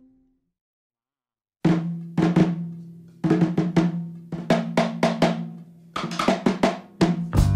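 Background music: one piece fades out, then after about a second and a half of silence a new piece starts with sharp drum hits over a low held note.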